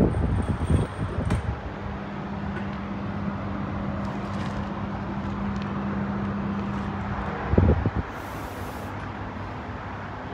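Workshop background noise with a steady mechanical hum lasting about six seconds, which stops with a thump, followed by a short high hiss.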